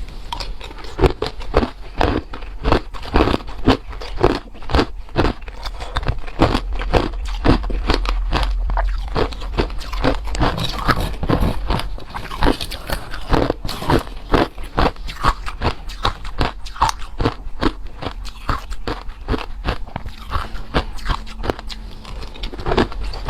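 A person biting and chewing hard ice close to the microphone: rapid, irregular crunches several times a second without a break.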